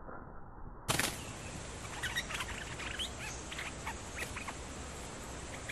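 A sharp click about a second in, then bulbuls calling in a quick run of short, sharp chirping notes.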